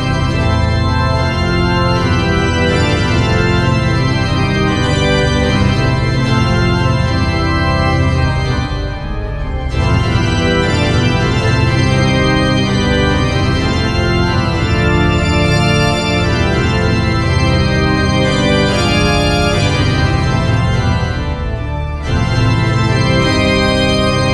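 Background music of long held chords, dipping briefly twice.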